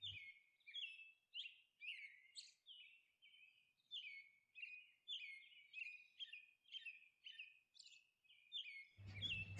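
Faint bird chirping: a steady string of short, high chirps, about two or three a second.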